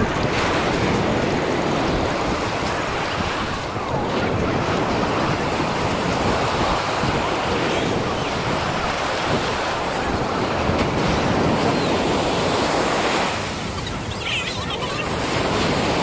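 Ocean surf breaking and washing onto a sand beach, with wind buffeting the microphone. The noise eases briefly about three-quarters of the way through, then builds again.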